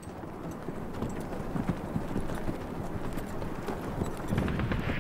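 Hooves of several horses walking on a stony mountain track: an irregular, overlapping clip-clop of knocks.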